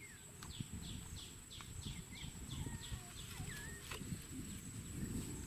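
A bird calling a run of short falling notes, about three a second, which fades out after about three seconds, over low rustling and a steady high whine.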